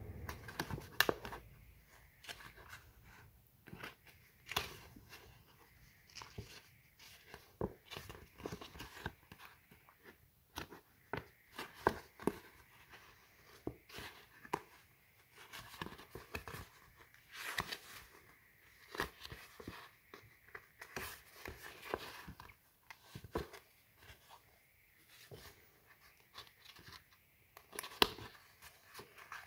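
Scored polypropylene sheet being bent along its score lines and pinched into creases by hand: irregular crackles and clicks as the plastic flexes and folds, with a few sharper clicks standing out, about a second in, near the middle and near the end.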